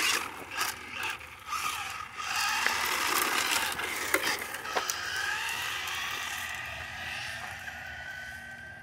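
Remote-control car driving on gravel: its small electric motor whines up and down in pitch over crunching, clicking gravel, and the sound fades away toward the end.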